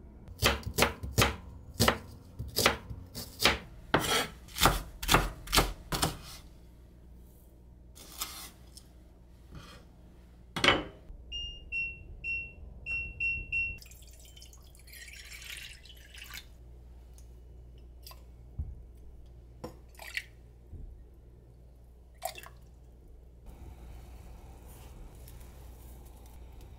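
Kitchen knife chopping on a cutting board, a quick steady run of a few strokes a second for the first six seconds, then one more chop. A little later a kitchen appliance beeps four times in quick succession, followed by a few light clicks and handling noises.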